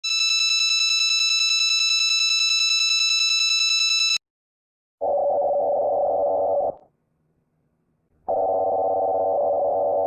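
Electronic alarm tones. A high, buzzy, steady tone sounds for about four seconds and cuts off suddenly. After a short gap a lower buzzy tone sounds for under two seconds, and another begins about eight seconds in.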